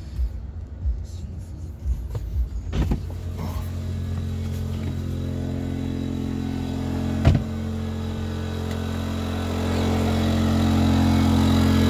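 A-iPower 2300-watt inverter generator with a Yamaha engine running steadily under the load of charging an electric car. Its hum comes in about three seconds in and grows louder near the end, echoing off the garage. There is one sharp knock about seven seconds in.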